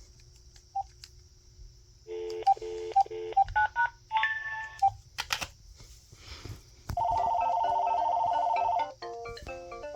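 Telephone keypad beeps and tones as a number is dialed, then a steady warbling ring tone for about two seconds, then an AT&T EL52303 DECT 6.0 cordless phone starting to ring with a melodic ringtone about nine seconds in.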